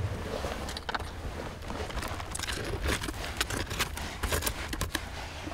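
A small hand digging tool scraping and raking through loose soil in short, irregular strokes, with gritty scratches and light ticks.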